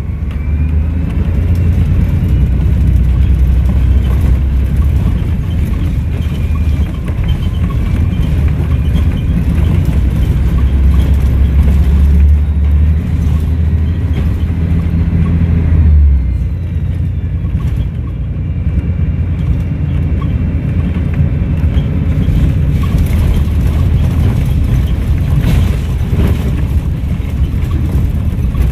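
Volvo B7RLE bus engine pulling under load with a high turbo whistle over its low drone, the whistle rising in pitch. About halfway through the engine eases off and the whistle falls away, and the bus runs on more quietly.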